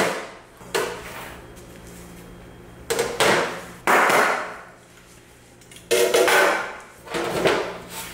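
Metal loaf pans knocked down on the work surface about five times, a second or two apart, each knock with a short ringing tail, to loosen freshly baked loaves from the pans.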